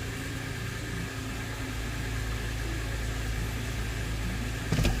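2006 Subaru Tribeca's 3.0-litre six-cylinder boxer engine idling steadily in gear. A short click comes near the end.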